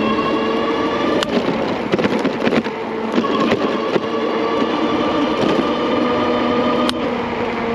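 Ariel Rider Grizzly e-bike under way: a steady whine from its electric hub motors over wind and tyre noise, broken by sharp knocks and rattles as the bike jolts over bumps, a cluster about two seconds in and a single knock near the end.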